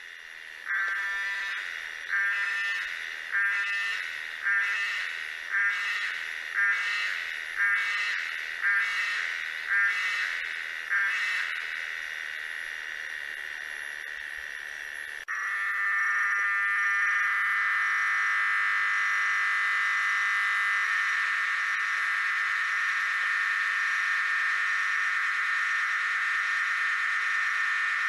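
Cicadas singing: about ten loud pulsed calls a little over a second apart, each starting sharply and fading, then a softer steady drone. About fifteen seconds in, a different cicada's continuous, steady buzz starts abruptly.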